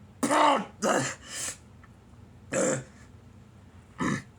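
A bout of hiccups: five short separate hiccups at uneven gaps, the first two close together, the loudest near the start.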